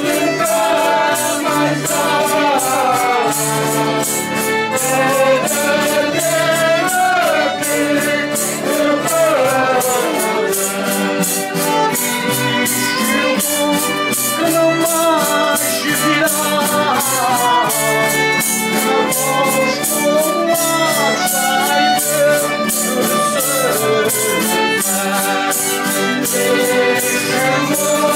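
A group of voices singing a traditional Azorean Janeiras folk song together, with instrumental accompaniment and a steady percussion beat.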